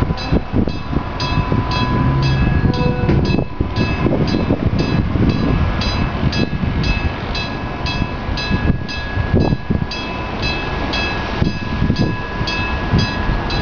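Enoden railway level-crossing warning alarm ringing, a short pitched stroke repeated steadily about twice a second, with heavy wind noise on the microphone.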